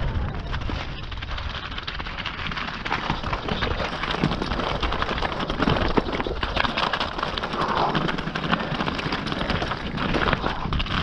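Mountain bike tyres crunching over loose scree at speed, with a dense clatter of stones and the bike rattling over the rocks.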